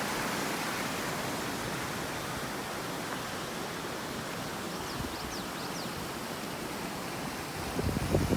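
Steady rushing of a mountain stream and waterfall. A few faint high chirps come about five seconds in, and a short spell of low buffeting thumps comes near the end.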